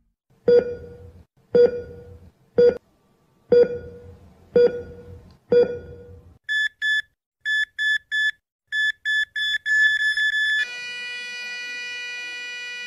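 Electronic sound effects: six sharp hits about a second apart, each ringing briefly, then short high beeps that come faster and faster and merge into one steady held tone, like a heart monitor flatlining.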